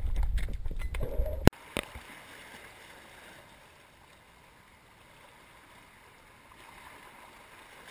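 Underwater camera noise: a low rumble with scattered knocks and clicks as a speared fish is handled, cut off abruptly about a second and a half in. Then a faint, steady wash of small waves on shore rocks.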